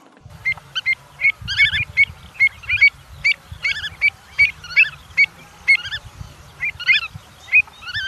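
Pied avocet calling: a steady series of short, high notes, about two or three a second, over a low rumble.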